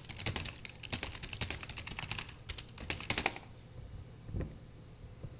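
Fast typing on a computer keyboard, a quick run of key clicks that stops about three and a half seconds in, followed by a single soft low thump about a second later.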